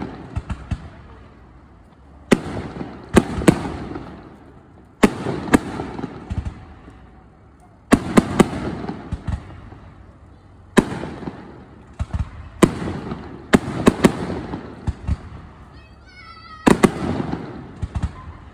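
Aerial firework shells bursting overhead: a sharp bang every two to three seconds, some in quick pairs, each dying away over a second or so.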